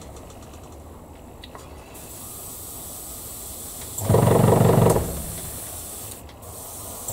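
Airbrush spraying paint with a steady hiss. About four seconds in, a loud low buzz lasts just under a second.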